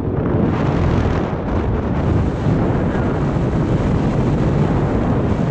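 Loud, steady rumble of airflow buffeting the microphone of a camera worn by a paraglider pilot in flight.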